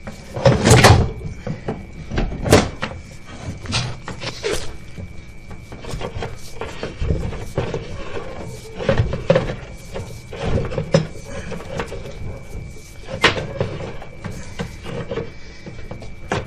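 Irregular knocks and clunks from a sewer inspection camera's push cable being fed down the line, with several loud ones in the first few seconds and another about 13 seconds in, over a faint steady high-pitched tone.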